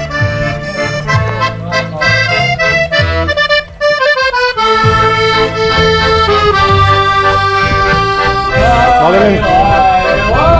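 Background music: a melody over a stepping bass line, with a sliding, bending lead line coming in about eight and a half seconds in.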